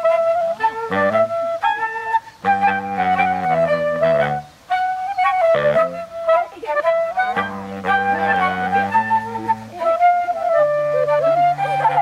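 Soprano saxophone playing a quick melody over a baritone saxophone bass line, joined in the second half by a wooden flute.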